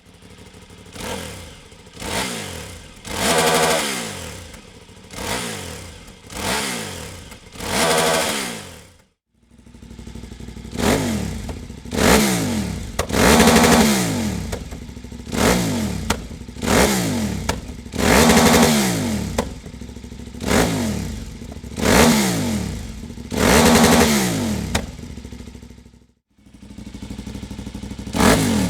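A KTM 990 Super Duke's V-twin engine, breathing through a Dominator full exhaust system, revved in repeated short throttle blips. Each blip climbs quickly and falls back to idle. The blips come in runs broken by brief silences about nine seconds in and near the end.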